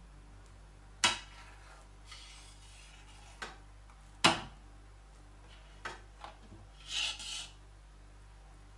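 Metal spatula knocking and scraping against a metal cake tray while chocolate ganache is spread on a cake's sides. There are two sharp clinks, about a second in and about four seconds in, a few lighter taps, and short scraping strokes near the middle and near the end.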